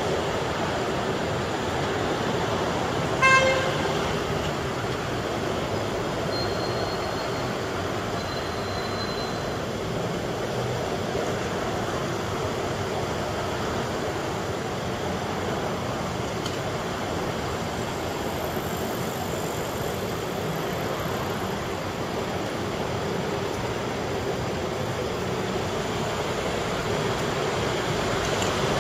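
Steady city street traffic noise, with one short vehicle horn toot about three seconds in, the loudest sound.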